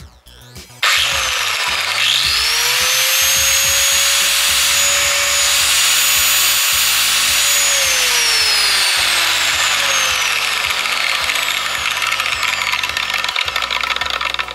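Parkside PWS 125 A1 1200 W angle grinder switched on about a second in, its motor whine rising quickly to full speed and running loud and steady. After several seconds the whine falls in pitch while the loud rasping noise carries on, then it cuts off suddenly at the end.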